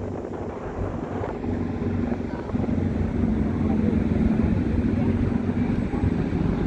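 Car ferry's engines running with a steady low drone over a rushing noise, growing louder about two and a half seconds in.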